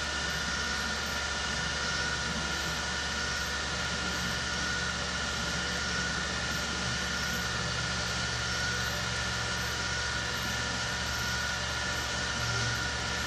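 Steady background hum and hiss with a few constant thin whining tones, unchanging throughout, typical of room or equipment noise picked up by a desk microphone.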